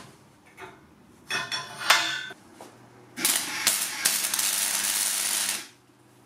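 A few metallic clanks, then a welding arc crackling loudly for about two and a half seconds as the joint of a rolled steel tube ring is welded. The arc starts with a short stutter before it settles into a steady crackle, and it stops suddenly.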